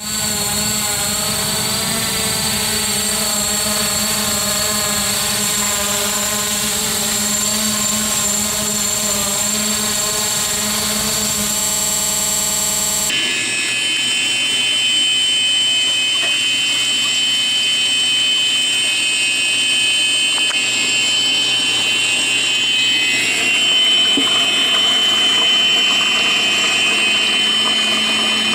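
Hubsan H501S X4 quadcopter's brushless motors and propellers whining as it hovers, the pitch wavering slightly. About 13 s in the sound cuts abruptly to a steadier, higher-pitched whine.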